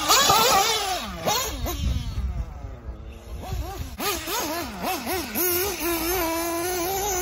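Electric RC buggy's motor whining, its pitch swooping up and down quickly with the throttle, then holding a steadier high whine over the last second or two.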